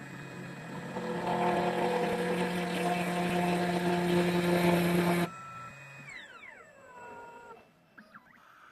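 2M2 Tank CNC key cutting machine's spindle running steadily as it mills a key, then stopping abruptly about five seconds in and winding down with a falling whine, followed by a few light clicks.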